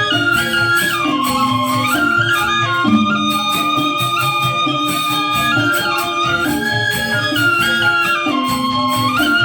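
Balinese gamelan angklung playing: four-tone reong kettle gongs and bamboo grantangan with metallophones, interlocking in a melody that steps up and down over a steady pulse.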